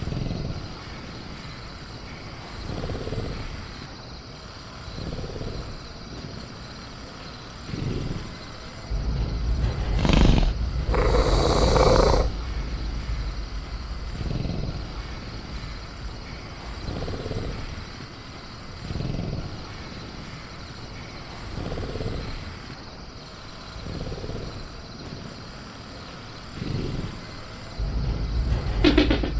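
Sound-designed velociraptor in a cage giving short low growls about every two seconds over a faint steady cricket chorus. About ten seconds in comes a deeper rumble with a louder, harsher burst, and a deep rumble returns near the end.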